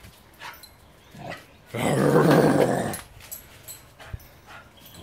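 Bull mastiff x bull arab pup giving one rough growl in play, lasting just over a second, starting a little under two seconds in.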